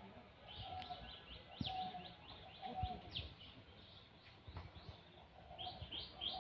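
Birds chirping outdoors: a run of short, high chirps about three a second that pauses past the middle and then resumes, over a lower call repeating roughly once a second. Scattered soft low knocks lie underneath.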